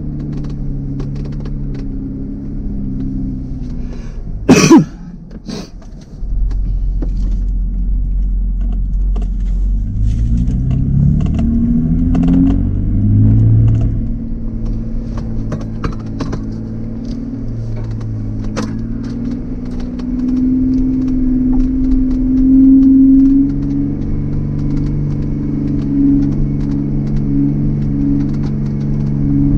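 Jeep engine running at low revs on a trail climb, its pitch rising and falling as the throttle is worked, under a low rumble of wind on the microphone. One sharp, very loud knock comes about four and a half seconds in.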